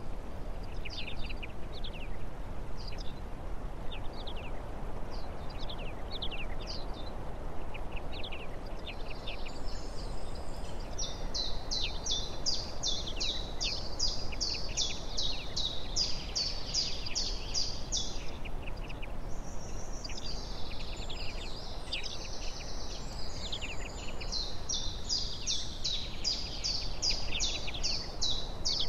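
Small songbirds calling and singing: scattered short high chirps, then two long runs of rapidly repeated high notes at about three a second, the first starting about a third of the way in and the second near the end, over steady low background noise.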